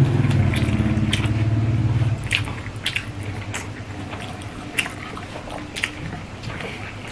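Hands kneading rice with fish curry on steel plates, and chewing: wet squishes and light clicks about once a second. A low steady hum runs under it for the first two seconds, then stops.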